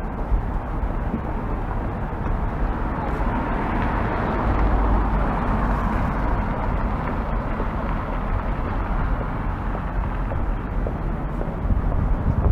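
City street traffic noise: a steady rush of cars on the road, swelling about midway as a vehicle goes by.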